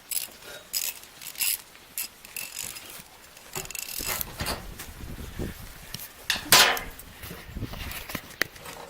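Scattered metal clicks and clinks from hand tools and wheelbarrow axle hardware being handled, with a louder scrape about six and a half seconds in.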